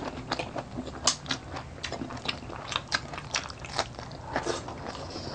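Close-miked chewing and lip-smacking of two people eating pork steak and rice with their hands: a quick, irregular run of sharp mouth clicks.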